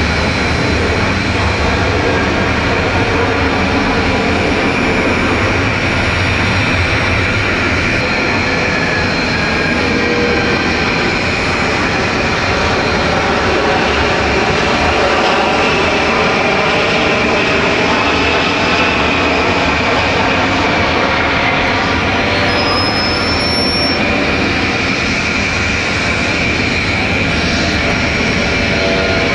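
Jet airliner engines at takeoff power, a steady loud rushing noise with faint whines that drift in pitch.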